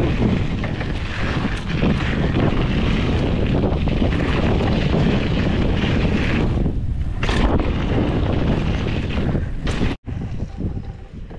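Wind noise on the microphone and tyres rolling over a dirt trail as a mountain bike is ridden along singletrack. The noise stops abruptly about ten seconds in, leaving a much quieter stretch.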